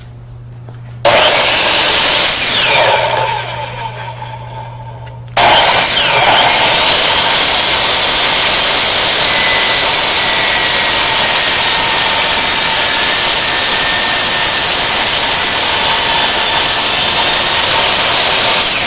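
Electric compound miter saw running loud: switched on about a second in, winding down after a couple of seconds, then started again about five seconds in and running steadily through the rest.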